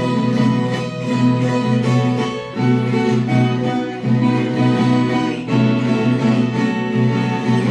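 Violas caipiras playing an instrumental interlude of a moda de viola: plucked-string melody and strummed chords in a steady rhythm, with no singing.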